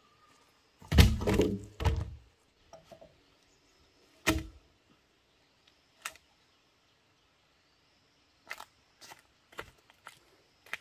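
Bamboo poles being handled and knocked together: a heavy hollow clatter about a second in with a second thud just after, then single sharp knocks near four and six seconds and a few light taps near the end.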